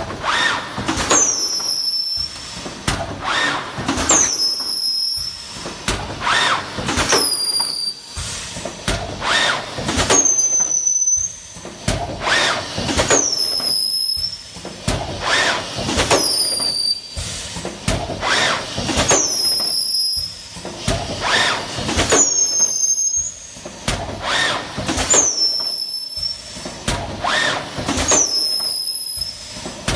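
WM FC 780E IM2+ thermoforming machine running in cycle: about every two and a half seconds a high squeal falling in pitch, amid repeated hissing and mechanical knocks from the press as plastic trays are formed.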